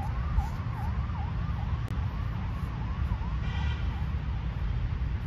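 Emergency-vehicle siren in a fast yelp, its pitch sweeping up and down about twice a second, over a steady low rumble.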